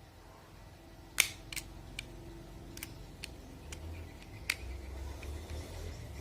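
Swiftlets giving sharp echolocation clicks: about half a dozen single clicks at uneven spacing, the loudest about a second in. A low rumble builds underneath in the second half.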